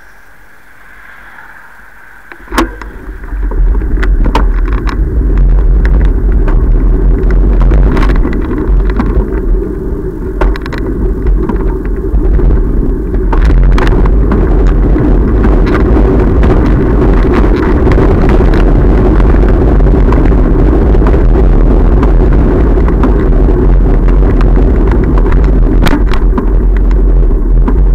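Riding noise heard through a camera mounted on a bicycle: a loud, steady rumble that starts with a click about two and a half seconds in, as the bike sets off from a standstill, with scattered clicks and knocks as it rolls over the road and paving.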